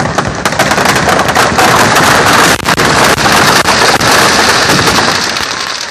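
Firecrackers packed into a burning Ravana effigy going off together: a loud, dense crackle of rapid pops over a hiss of sparks. It starts suddenly and eases a little near the end.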